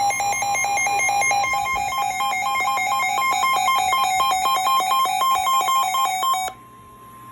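Weather radio warning alarm: rapid electronic beeping alternating between two pitches, cutting off suddenly about six and a half seconds in, after which a steady single-pitch tone goes on faintly. It signals that a warning, here a severe thunderstorm warning, is about to be broadcast.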